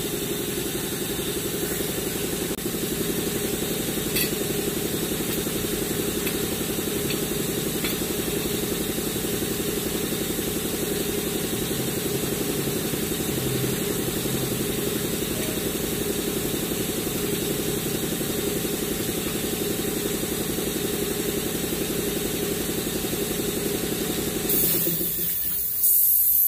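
A steady mechanical drone from a running machine, with a few faint clicks. It cuts off abruptly just before the end, and a brief hiss follows.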